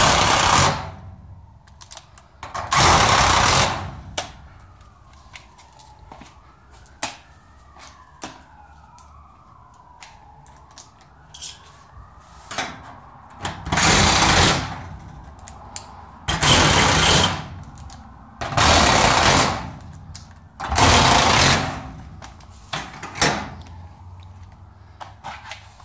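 Power driver running in about six short bursts of roughly a second each, driving screws in the garage door's section hardware, with small clicks of handled metal parts between the bursts.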